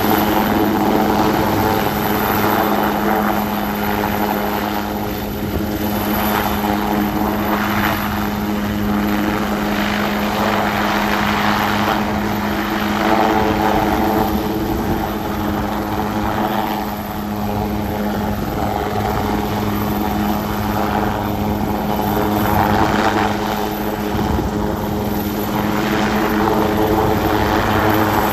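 Indian Coast Guard HAL Dhruv twin-turbine helicopter hovering low and slowly climbing with a load slung on a long line: a steady rotor and turbine hum with a strong low tone, the rush of the rotor wash swelling and fading every few seconds.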